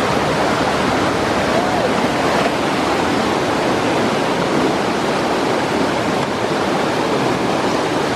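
River water rushing steadily over rocks in rapids, an even, unbroken noise.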